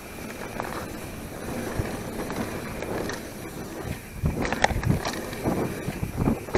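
Mountain bike riding down a dirt singletrack: tyres rolling on the trail and the bike rattling, with louder knocks and clatter over bumps from about four seconds in.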